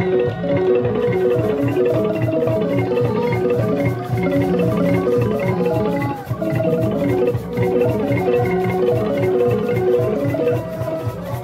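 Live traditional xylophone music: fast, repeating mallet notes over a steady drumbeat.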